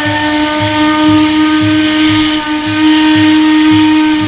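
A boat's horn sounding one long, steady blast, over music with a low beat about twice a second.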